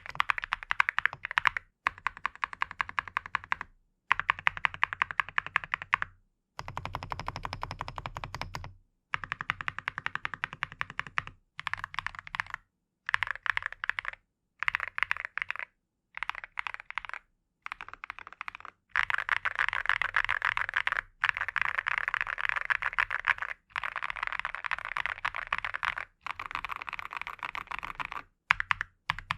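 Fast typing on a Cerakey Nada 65 Panda mechanical keyboard with ceramic keycaps and Everfree Celeste Blue switches: dense runs of keystrokes in stretches of a couple of seconds, each cut off abruptly by a short silence.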